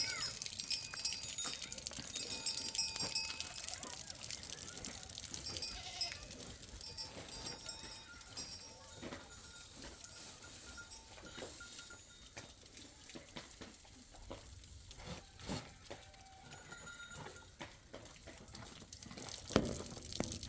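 A flock of sheep and goats bleating now and then, with scattered knocks and clicks in the second half and one sharper knock near the end.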